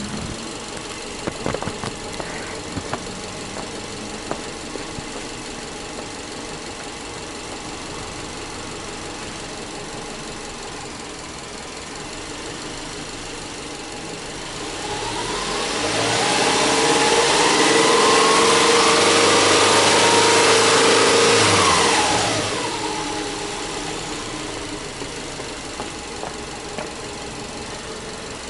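Subaru Legacy Touring Wagon 2.5i's flat-four boxer engine idling, then revved with no load about halfway through, held high and steady for some six seconds, and let fall back to idle.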